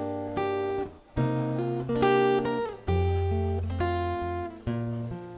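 Music with no singing: an acoustic guitar strumming a run of chords over a low bass line.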